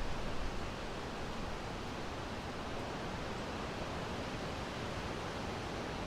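Steady wind blowing through a summer forest, the leaves rustling.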